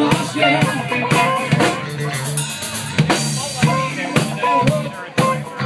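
Live band playing, a drum kit keeping a steady beat over electric guitars and bass guitar.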